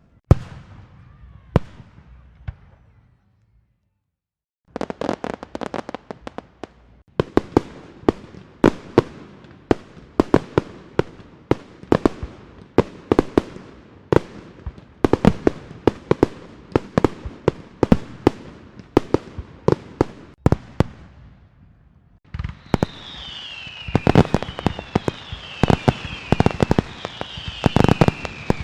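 Fireworks and firecrackers: a few bangs, a brief silent gap about four seconds in, then a long run of rapid, sharp bangs and pops, several a second. In the last six seconds a hiss with repeated falling whistles joins the bangs.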